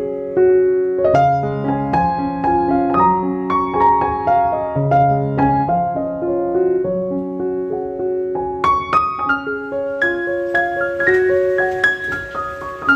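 Background piano music: a slow melody of single notes over a low bass line.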